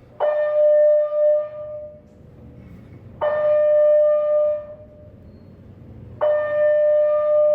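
Fire alarm signal of a two-stage Simplex 4100 system sounding its stage-one alert: a steady tone about a second and a half long, repeated every three seconds, three times.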